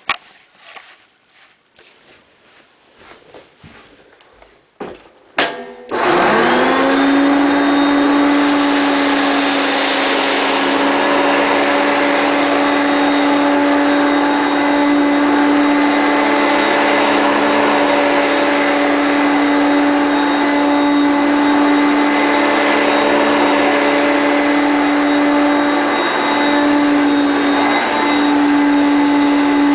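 A few faint clicks of handling, then about six seconds in a 1989 Hoover Concept 1 upright vacuum cleaner switches on, its motor spinning up with a short rising whine and then running steadily with a loud whine over a rush of suction.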